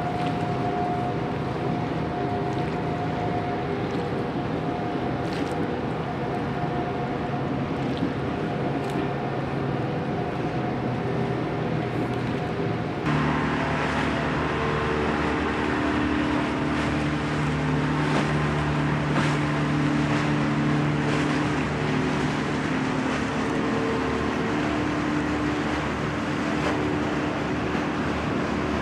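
Motorboat engine running steadily over wind and water noise. About halfway through, the sound changes abruptly to a louder, lower engine drone.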